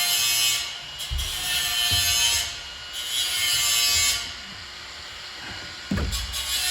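Repeated scraping and rubbing strokes as a locomotive number board panel is slid and worked into its WD-40-lubricated rubber gasket, with a few dull knocks.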